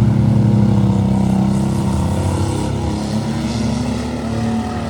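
Demolition derby car engines running loud and steady, slowly fading.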